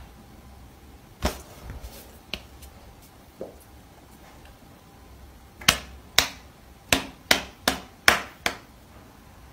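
A Bengal cat's front paws smacking against a person's open hand as it boxes at it: a few sharp slaps scattered through the first few seconds, then a quicker run of about seven, roughly two a second, in the second half.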